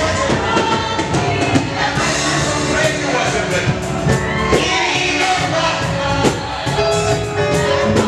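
Live gospel worship music: singing over a band with a steady drum beat.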